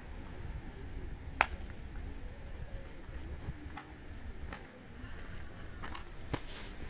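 Two sharp knocks of gateball play, a loud one about a second and a half in and a softer one near the end, over a low wind rumble and faint distant voices.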